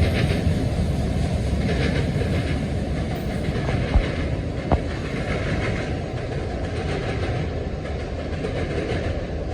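Freight train cars rolling past, a steady rumble of steel wheels on the rails, with two sharp knocks about four and five seconds in.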